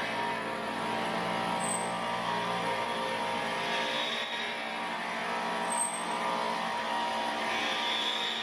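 Rod-bending machine running steadily as it winds steel rod into a spiral coil, a continuous motor hum with a brief high squeak twice.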